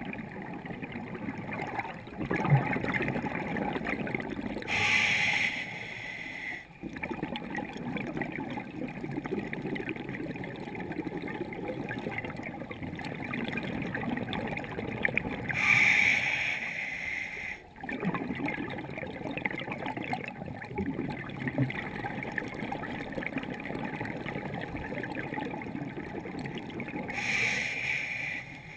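Muffled underwater rumble heard through a camera housing, with three rushing bursts of scuba regulator exhaust bubbles, each about two seconds long and roughly ten seconds apart, and a single sharp knock about two seconds in.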